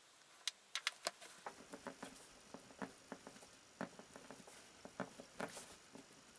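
Faint, irregular taps and scratches of a pen marking hole positions as dots on a piece of leather. A few sharper clicks come in the first second, as the leather pieces and pen are handled.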